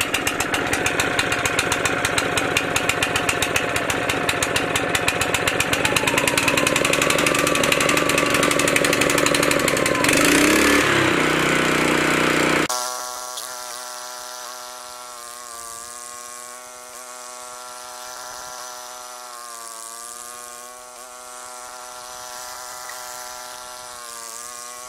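Honda tracked snowblower's single-cylinder engine running close up, freshly started after a leaking carburetor fuel hose was re-clamped, with rapid even firing pulses. About halfway through the sound cuts to the same engine heard from further off as a steadier drone that dips slightly in pitch a few times while it throws snow.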